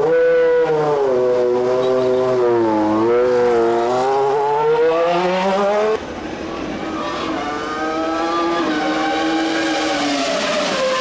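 Formula 1 car engine at high revs, its pitch falling and rising several times as the car brakes, shifts and accelerates. About six seconds in the sound cuts abruptly to a quieter passage of engine note that climbs, holds and drops again.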